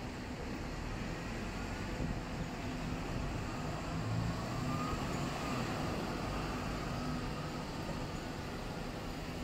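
City street ambience: a steady rumble of traffic from passing vehicles.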